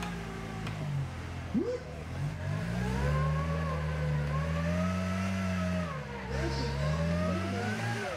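Rock-crawler buggy's engine revving as it climbs a rock ledge: the revs rise about two seconds in and are held high, drop briefly about six seconds in, then rise again.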